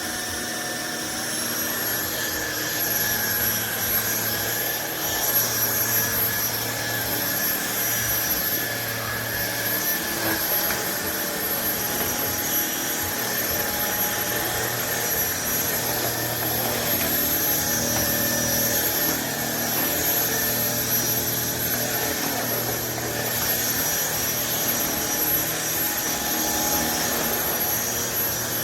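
Trucozie T352 cordless stick vacuum running: a steady high-pitched motor whine over rushing air, the tone shifting a little now and then as it works.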